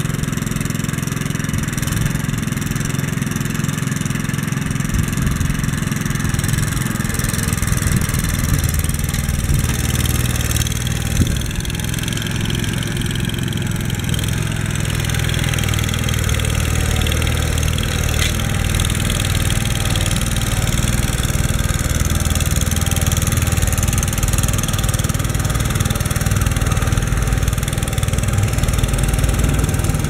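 Engine of the Mountaineer, a walk-behind machine fitted with a snow cannon, running steadily under load while it throws snow; it grows a little louder near the end.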